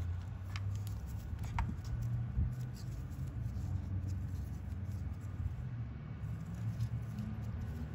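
Scattered light clicks and small metal rattles as a chainsaw carburetor is worked off its fuel lines with forceps and handled, over a steady low hum.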